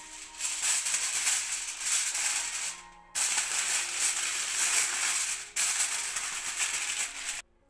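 Aluminium foil crinkling and crackling as it is handled and pressed down over the rim of a cake mould. It is loud and comes in three stretches, broken off abruptly twice.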